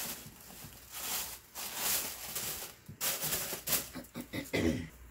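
Fabric dust bag and packaging rustling and crinkling in irregular handling strokes as a handbag is unwrapped and drawn out of its white drawstring dust bag.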